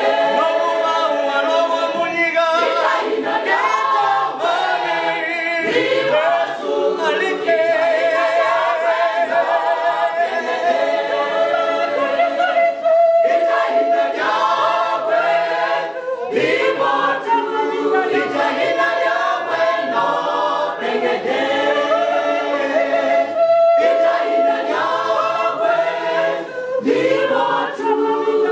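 Mixed church choir of men and women singing a hymn a cappella in several parts, with a high voice now and then holding long wavering notes above the others.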